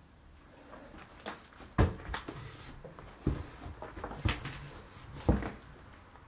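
Slow, careful footsteps across a damaged floor: about five sharp steps or knocks, roughly a second apart.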